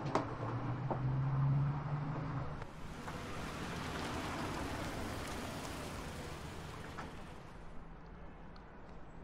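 Night street traffic: a low engine hum with a few light clicks, then from about three seconds in a steady rushing noise of traffic that eases off near the end.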